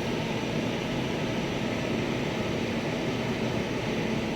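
Steady background mechanical noise with a faint low hum, even in level, with no distinct knocks or clicks.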